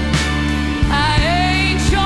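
Slow blues-soul music: a wavering lead melody with vibrato, bending up about halfway through, over held bass notes and a steady drum beat.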